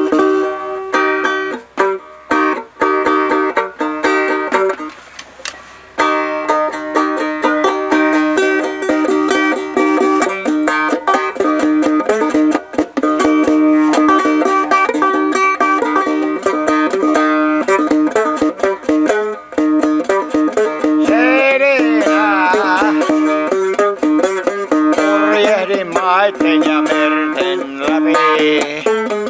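Music: an instrumental passage led by plucked strings, with a brief drop-out about five seconds in. Wavering, bending notes join in over the last third.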